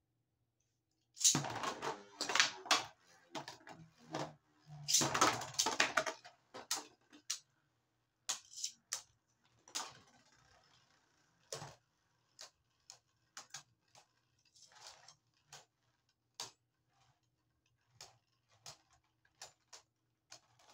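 Beyblade Burst spinning tops launched into a plastic stadium. Two loud bursts of rattling clatter, about a second in and again about five seconds in, then scattered single sharp clacks about once a second as the spinning tops knock against each other and the stadium.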